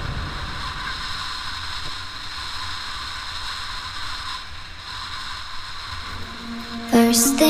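Steady wind rush and road rumble from a moving motorcycle, with no clear engine note. Music starts again about seven seconds in.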